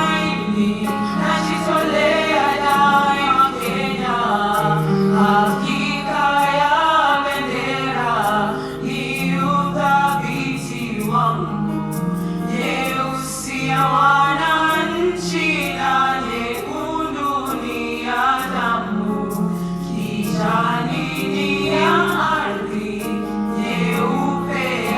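Choir singing a gospel song, sung melody lines over steady held low notes.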